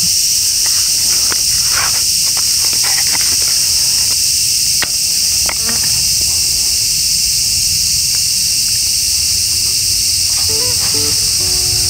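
Steady, shrill chorus of insects over a low rumbling haze. A few faint crackles come in the first few seconds, and two sharp ticks come about five seconds in.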